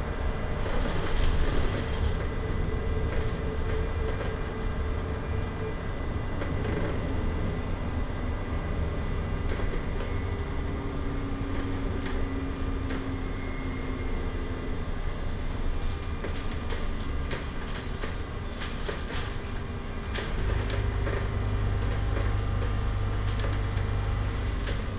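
Cabin ride noise of a Scania battery-electric bus on the move: a steady low rumble with thin whines from the electric drive, one high whine sliding down in pitch about halfway through. Scattered clicks and knocks come through a little later, and the low rumble gets heavier near the end.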